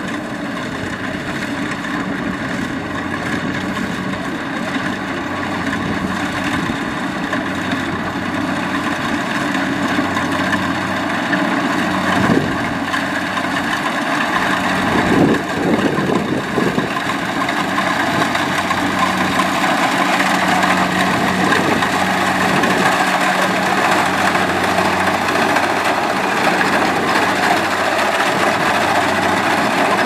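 Kubota DC70 Plus combine harvester's diesel engine running steadily as the machine cuts rice, with a few brief louder noisy swells around the middle.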